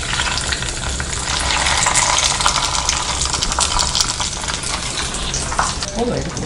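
Hot ghee with fried cashews and raisins poured from a ladle onto sweet pongal, sizzling and crackling as it hits the moist rice: the tempering being added. The crackle is thickest a couple of seconds in and thins toward the end.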